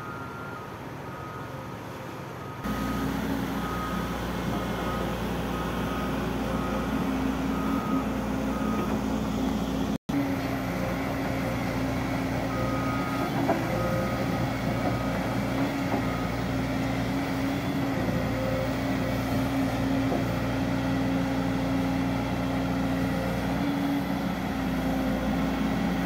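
Volvo EC210 crawler excavator's diesel engine running steadily under working load, with hydraulic hum, while it digs. A short beeping alarm repeats about twice a second; the engine sound gets much louder about three seconds in and breaks off for an instant near the middle.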